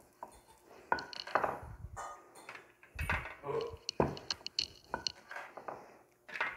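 Wooden rolling pin rolling small rounds of dough on a marble board, with irregular knocks and clicks as the pin is handled against the stone.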